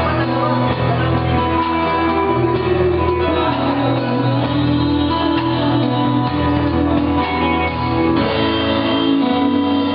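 Live band music with guitars, playing steadily without a break.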